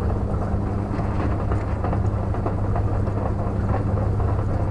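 Anchor windlass paying out chain to lower the anchor: a steady low motor hum with the chain rattling continuously over the gypsy and bow roller.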